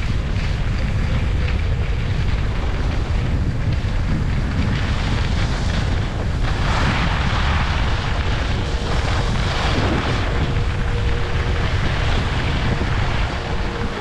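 Wind rumbling on the microphone of a skier moving downhill, with skis hissing and scraping over packed snow, loudest in a turn about halfway through.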